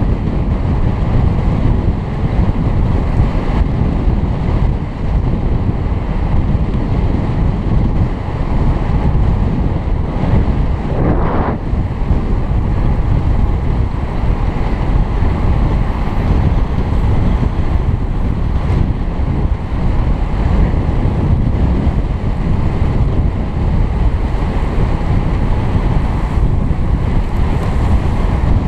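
Steady wind noise buffeting a helmet-mounted camera's microphone as a road cyclist rides at race pace in a group.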